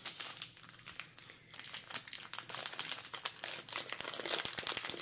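Clear plastic packaging crinkling and crackling in the hands as it is handled and opened. The crackles come thick and fast, denser in the second half.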